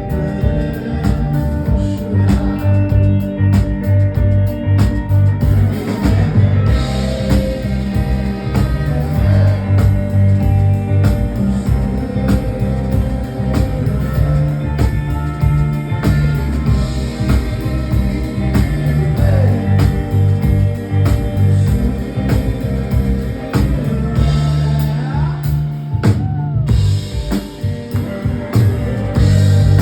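Live rock band playing an instrumental passage, with drum kit beating steadily under sustained guitar and keyboard-like notes.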